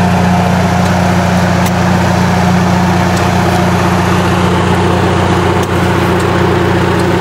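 Generator set's engine running steadily at a constant speed.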